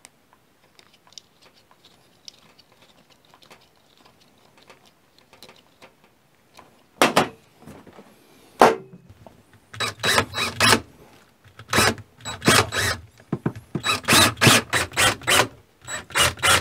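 Faint clicks of wires and small parts being handled, two loud knocks around the middle, then a cordless drill driving screws into a wooden panel in short trigger bursts, about three to four a second, from about ten seconds in.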